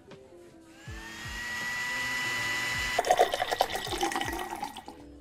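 A small motor whirs up to a steady high whine for about two seconds. A drink is then poured into a plastic cup with a splashing, rattling rush that fades out near the end. Light background music plays throughout.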